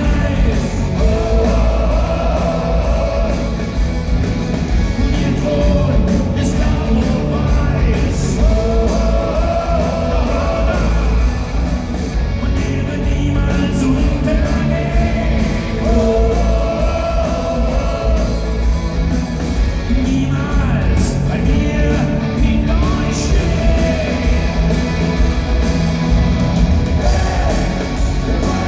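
Live rock band playing: electric guitars, bass and drums under held, repeated sung vocal phrases, heard from the audience in a large hall.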